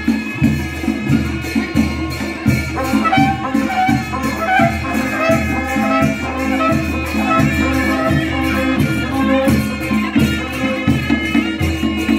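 Traditional band music with a reedy wind melody over a steady drone and a regular drumbeat.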